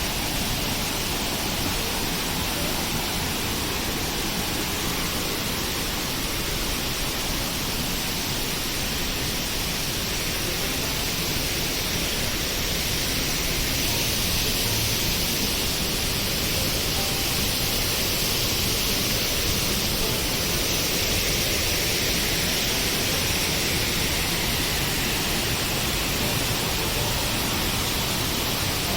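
Rani Duduma waterfall: a steady rush of falling water, a little louder about halfway through.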